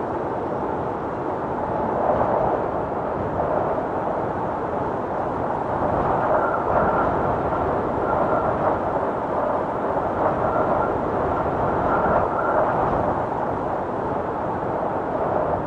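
Steady rush of strong wind, a dense unbroken roar of tornado-like wind noise, with a faint whistle coming and going through the middle.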